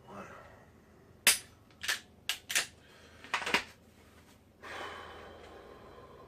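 Sharp clicks and snaps of a dry-fire pistol draw with a compact Glock 23: the pistol drawn from its holster and the trigger clicking on an empty chamber, five or six quick clicks in about two seconds. About four and a half seconds in, a longer rushing sound starts and slowly fades.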